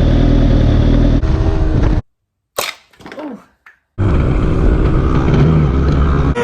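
Motorcycle engine running hard. It cuts off abruptly about two seconds in, leaving a near-silent gap with a few short sounds, then runs again from about four seconds in.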